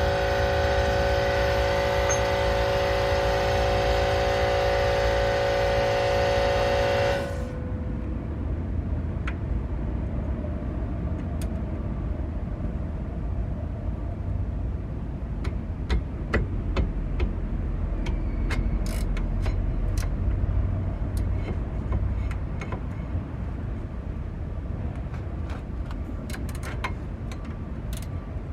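A steady mechanical hum made of many even tones cuts off suddenly about seven seconds in, leaving a low rumble with scattered sharp clicks and taps of metal tools.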